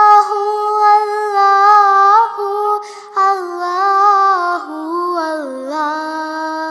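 A high voice sings an Islamic devotional nasheed in Arabic and Urdu, drawing out long ornamented notes with a short break for breath about three seconds in.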